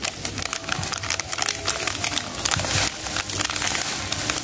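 Plastic packet of instant yeast crinkling and crackling as it is squeezed and shaken out over flour in a glass bowl, with many quick crackles throughout.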